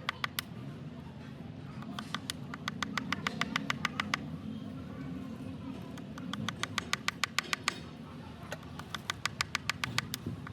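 Rapid, regular clicking, about seven clicks a second, in runs of about two seconds with short pauses between them, over a steady low hum.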